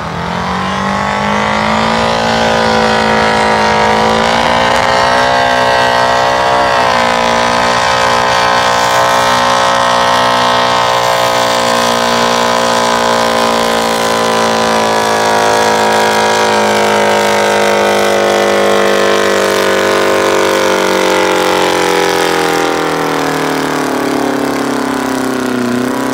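Oliver 1950 tractor's Detroit Diesel 4-53 two-stroke diesel running flat out under heavy load as it drags a tractor-pull sled. The engine note climbs in the first two seconds and holds high. Over the second half it is slowly pulled down as the sled's load builds, then picks up again at the very end.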